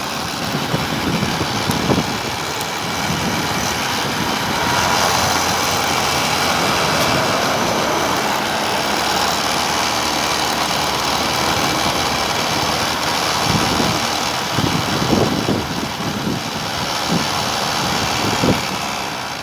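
Steady ride noise from an electric tricycle driven by a converted washing-machine BLDC motor: wind and road rumble, with a faint high whine in the middle stretch and a few low buffets later on.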